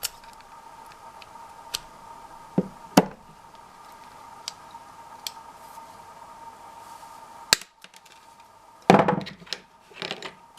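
Scattered sharp clicks and light knocks of small die-cast car parts (wheels, axles) being handled and set down on a work surface. A denser clatter comes near the end, over a faint steady hum.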